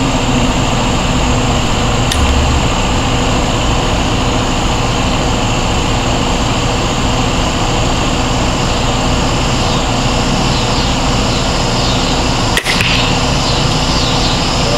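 A crossbow bolt fired from a crossbow shoots into a bag archery target with a single sharp smack about twelve and a half seconds in. A steady mechanical hum runs underneath throughout.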